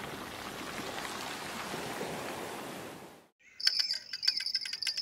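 Surf washing over pebbles, fading out; then, after a sudden cut, a high steady insect drone with rapid ticking and a few bird chirps from the riverbank.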